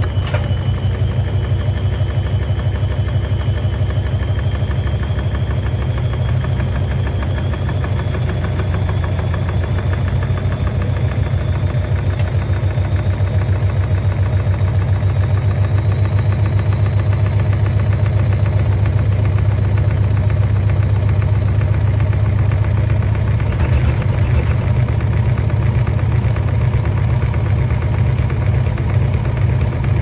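Front-loading washing machine spinning with its door open and an unbalanced load. The drum rumbles with a fast, even beat, and the motor whine climbs slowly in pitch as the spin speeds up.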